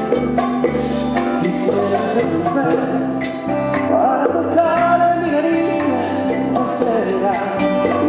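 Live band playing a Latin tune: electric guitars, bass notes, congas and drum kit, with a metal scraper ticking a steady beat. A voice sings along from about four seconds in.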